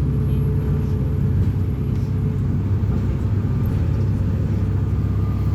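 Diesel engine of a Neobus Thunder bus on an Agrale MA 10.0 chassis running steadily, a deep even drone with no change in pitch.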